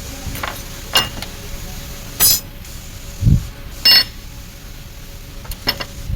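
Sharp metallic clinks of tools and steel gearbox parts being handled, about three in all, with a dull thud a little past the middle and a faint steady hum underneath.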